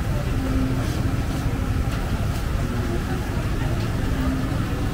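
Busy outdoor night-market ambience: a steady low rumble with indistinct background voices and a few faint clicks.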